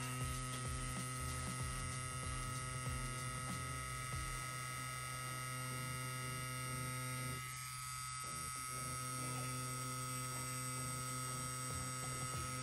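CNC Q6 rotary tattoo pen running steadily with a low electric hum while a 9-round liner needle works into silicone practice skin. It is running at 9.5 volts, which the artist finds too little for this larger needle grouping.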